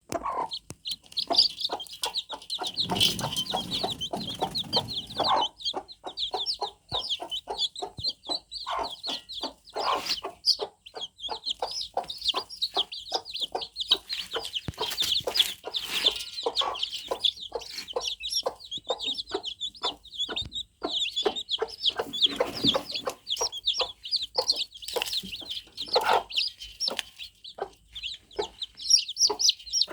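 A group of newly hatched chicks cheeping continuously, many high-pitched peeps overlapping, with short clicks and taps throughout and brief low rustling twice.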